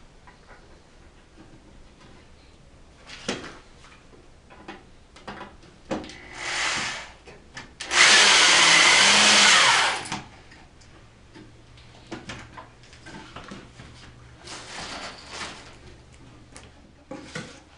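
A handheld power tool runs in two short bursts, a brief one about six seconds in and a loud one of about two seconds near the middle, amid scattered light knocks of wood being handled.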